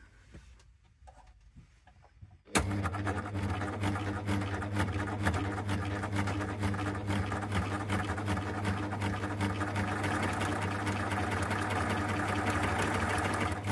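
Baby Lock Primo coverstitch machine starting up about two and a half seconds in and sewing through fabric at a steady speed, a constant motor hum under a rapid, even ticking of the needle strokes.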